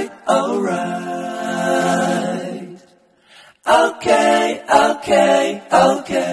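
Background song: a singing voice holding long notes with little or no accompaniment, breaking off briefly about three seconds in.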